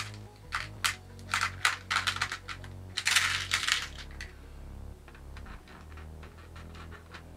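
Small stainless steel screws and nuts clattering in a plastic organizer compartment as a hand rummages through them: a quick run of metallic clicks with a dense rattle about three seconds in, then only a few fainter clicks.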